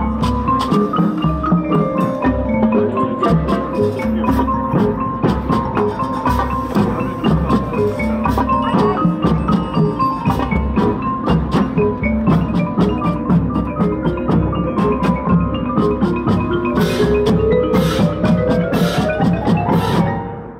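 Marching band drumline of snare drums, tenor drums and bass drums playing a fast, dense percussion feature over held pitched notes from mallet percussion. A rising run builds over the last few seconds and the music stops abruptly at the end.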